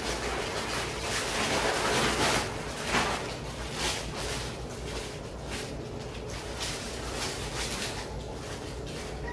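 Plastic packaging rustling and crinkling as it is handled: a poly mailer bag and the plastic wrap around a laptop sleeve. The crinkling is busiest in the first few seconds, while the sleeve is pulled out of the mailer, and lighter after.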